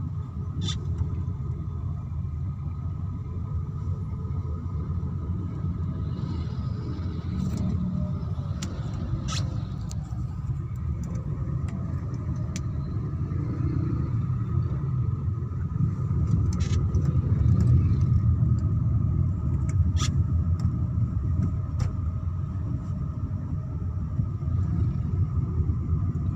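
Steady low rumble of a car's engine and road noise heard from inside the cabin while it crawls in slow, jammed traffic, growing slightly louder past the middle, with a few faint clicks.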